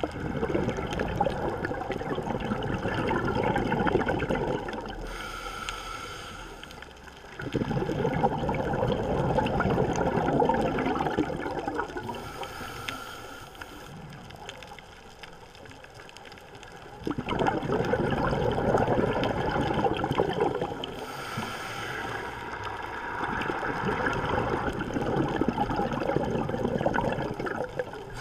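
Scuba diver breathing through a regulator underwater: three long, loud bubbling exhalations of a few seconds each, with a short hissing inhalation between them.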